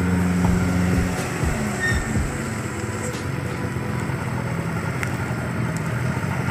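Small dump truck's diesel engine running at low revs as the truck crawls through mud, a steady low hum.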